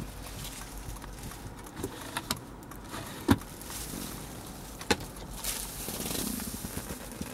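A few sharp clicks and knocks of the plastic trim on a car's centre console and armrest being handled, the loudest about three seconds in and another near five seconds, then a stretch of rustling near the end.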